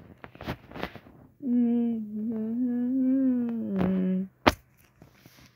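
A person humming one long, nearly steady note for about three seconds, with a few short clicks around it.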